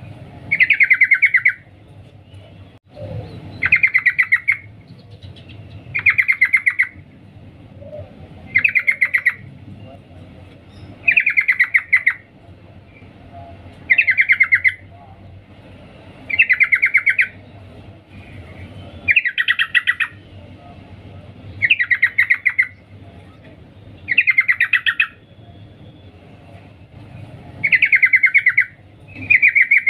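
Female yellow-vented bulbul (trucukan) calling to a male: a short, rapid stuttering chatter lasting under a second, repeated about every two and a half seconds over a low steady hum.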